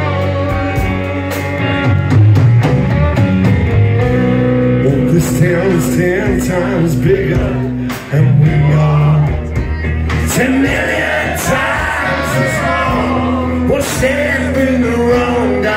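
Live rock band playing loud rock and roll, electric guitars over drums, with a brief drop in level about eight seconds in.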